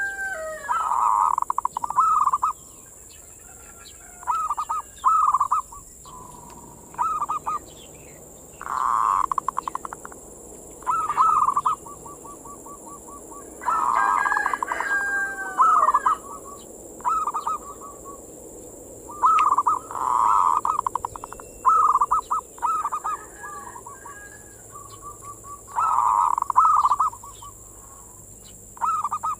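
Perkutut (zebra dove) singing: repeated phrases of rapid, pulsed cooing notes, about ten phrases with short pauses between them.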